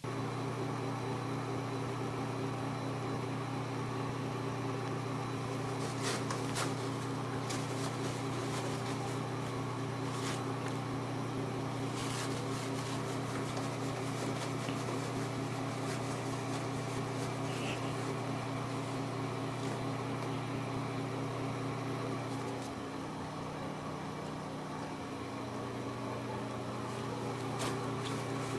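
A steady low mechanical hum that drops in pitch for a couple of seconds about two-thirds of the way through, with a few brief clicks over it.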